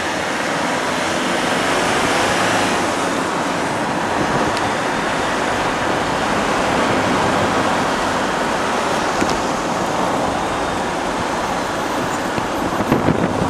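Steady rush of road and wind noise from a moving vehicle, heard from on board.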